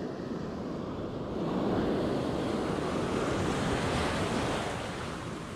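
Sea waves washing ashore, swelling about a second and a half in and easing off near the end, with wind buffeting the microphone.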